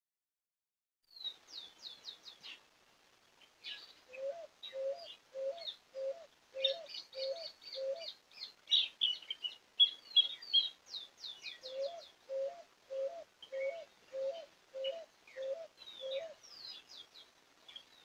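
Several wild birds singing in native woodland: quick high chirps and trills from small songbirds, over a lower call of hooked notes repeated about twice a second in two runs of seven or eight. The sound begins about a second in.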